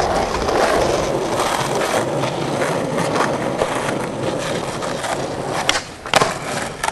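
Skateboard wheels rolling on rough asphalt with a steady rumble. Near the end comes the tail pop of a varial heelflip, then the clack of the board landing about half a second later.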